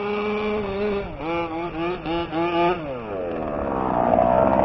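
Small two-stroke engine of a 1/5-scale gas RC truck revving in quick throttle bursts. About three seconds in the pitch falls away as the throttle drops, and then a louder, rougher engine sound builds near the end.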